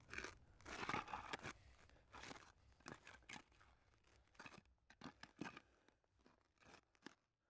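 Near silence, with a few faint crunching clicks and rustles, most of them in the first second and a half.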